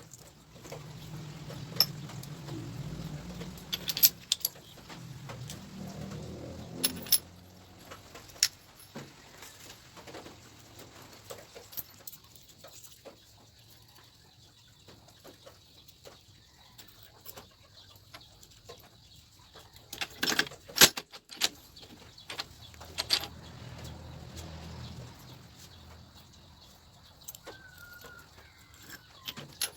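Metal motorcycle engine parts and hand tools clinking and tapping now and then as the engine is put back together, with a burst of several sharp clinks about two-thirds of the way in. A short wavering bird chirp is heard near the end.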